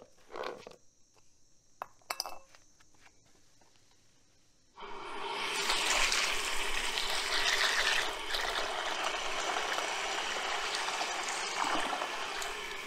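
A stream of water pouring into a stainless steel bowl of dry red beans, filling it to rinse them; the pouring starts suddenly about five seconds in and runs steadily. Two brief light knocks come before it.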